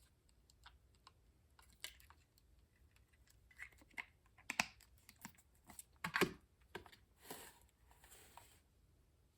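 Irregular light clicks and taps from handling a plastic cordless phone handset, with two brief rustles near the end.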